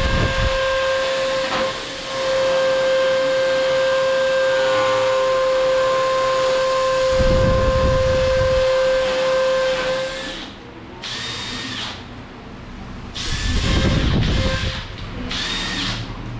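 Cordless drill boring into a wall, its motor whining steadily for about ten seconds, then stopping. Three shorter bursts of the drill follow near the end.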